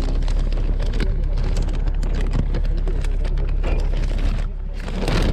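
Plastic bag crinkling and rustling in a dense, irregular crackle as it is handled, over a steady low rumble.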